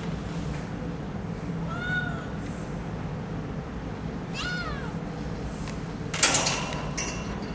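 Young kittens meowing: two short, high meows a couple of seconds apart, each rising then falling in pitch, over a steady low hum. About six seconds in comes a sudden loud clatter, the loudest sound.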